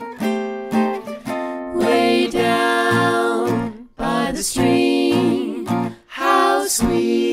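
Background song: plucked string notes, joined about two seconds in by long held sung notes with vibrato.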